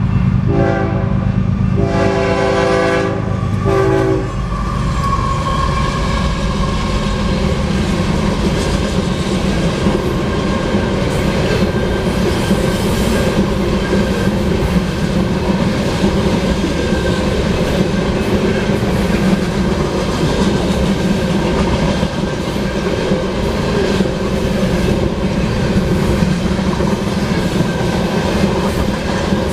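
Two horn blasts in the first four seconds, a chord of several steady tones, the first about a second long and the second about two, over the heavy low rumble of the passing train. After that, a loaded oil train rolls steadily past with continuous clickety-clack of wheels over rail joints.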